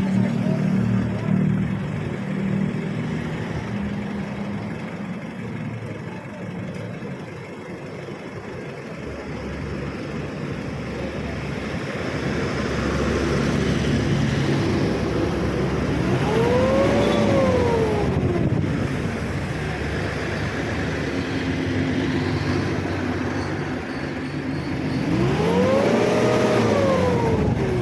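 Vehicle engine running, revved up and let back down twice, once about sixteen seconds in and again near the end.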